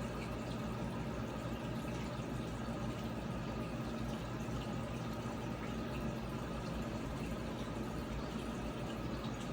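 Aquarium filter running: a steady trickle of water with a low hum.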